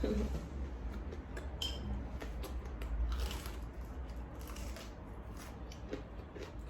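Biting and chewing crispy fried chicken: scattered short crunches and clicks, over a low steady hum.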